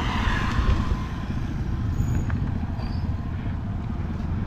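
Steady low rumble of outdoor street noise.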